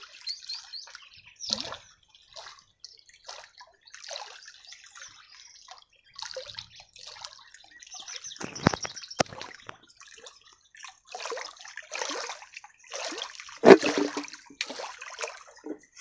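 Water splashing and sloshing in short, irregular bursts, with a couple of sharp knocks a little past halfway and the loudest splash near the end.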